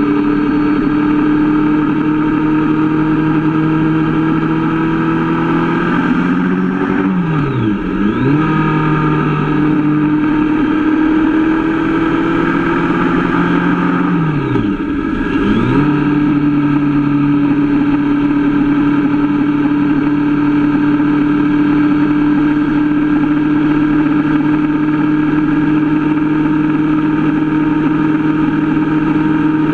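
Sport motorcycle engine running steadily at motorway cruising speed. Its pitch dips sharply and climbs straight back twice, about a quarter and half way in.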